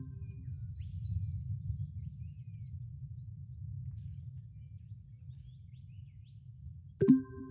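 Steady low background rumble from an open microphone with faint bird chirps. Near the end, a sudden bell-like chime strikes and rings on at several pitches.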